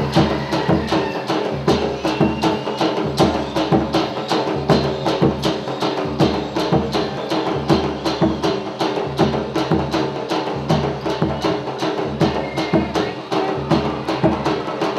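Folk dance music driven by a fast, steady percussion beat of sharp strikes, about four a second, over sustained melodic tones.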